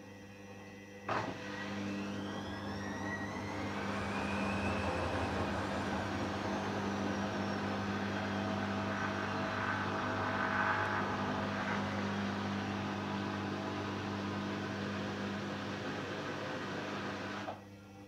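Hoover Dynamic front-loading washing machine's drum motor starting with a click about a second in, its whine rising for a few seconds and then running steadily as the drum tumbles the laundry. It stops suddenly near the end.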